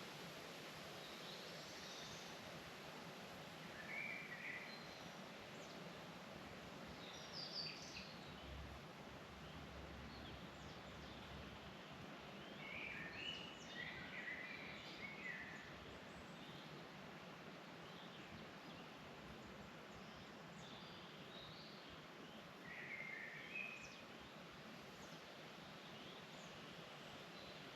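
Songbirds singing in a forest: short, high chirping phrases every few seconds over a steady, faint background hiss.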